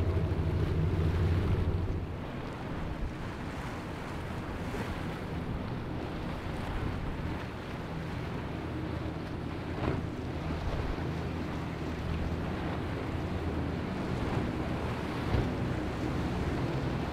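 Powerboat engines running past at speed over choppy water, with wave wash and wind buffeting the microphone. A twin-outboard center-console's low engine drone is loudest at first and drops about two seconds in, giving way to a steadier engine hum and water noise from a passing cabin cruiser.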